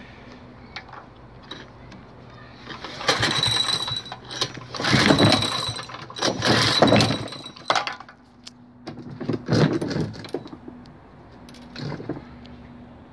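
Recoil pull starter on a 2014 Power Devil lawnmower's 3.5 hp overhead-valve petrol engine being pulled several times. Each pull is a burst of about a second as the engine is cranked over, and it does not catch and keep running.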